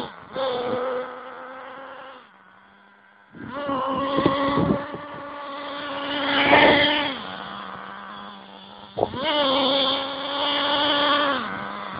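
STS D30M nitro engine of an RC monster buggy, being broken in, buzzing at a steady idle and revving up in three bursts as the buggy is driven. The loudest rev comes about halfway through, with a rising pitch.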